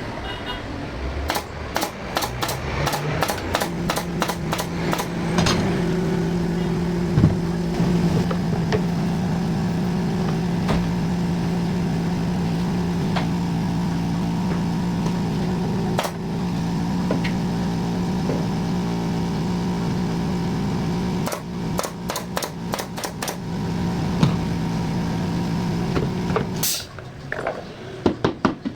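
An electric power tool's motor running at a steady pitch for over twenty seconds, with sharp clicks and knocks in the first few seconds and again a few seconds before it stops.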